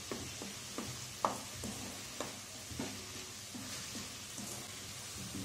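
Chopped red amaranth leaves sizzling in a metal kadai as a wooden spatula stirs them, scraping and knocking on the pan at irregular moments, the sharpest knock a little over a second in. The leaves are being fried down until they wilt and shrink.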